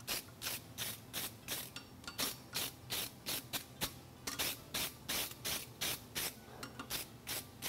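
Steel wire brush scrubbed back and forth over a red-hot forged steel horseshoe, scouring scale off the branch in short, even strokes, about three a second.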